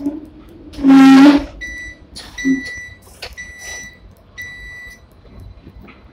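Seventh-generation Hong Kong tram's warning gong rung once about a second in, loud and ringing. It is followed by four short, high electronic beeps.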